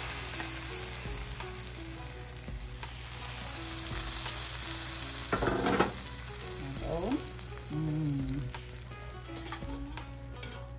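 Food sizzling in a hot pan as it is stir-fried and stirred, a steady hiss with a brief louder burst about five seconds in.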